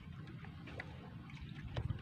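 Water lapping and trickling against the hull of a small wooden boat at sea, over a steady low rumble, with a few light clicks and a knock near the end.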